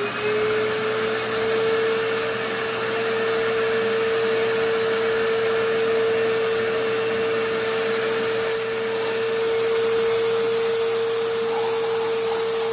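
Vacuum running steadily with a constant whine, its small hose sucking aluminium shavings out of a freshly tapped head-bolt hole in an aluminium engine block.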